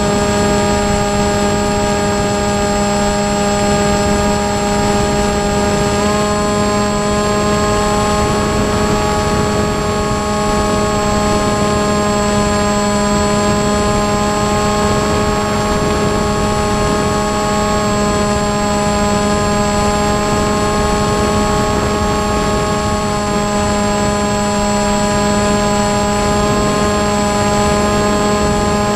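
Brushless outrunner motor and 6x4 propeller of an electric flying wing running steadily in flight: a steady whine of several tones over a rushing noise. One tone steps up slightly about six seconds in and wavers after that.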